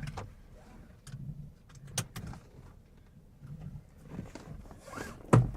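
Inside a car: a steady low rumble with a few small clicks, and one louder thud near the end.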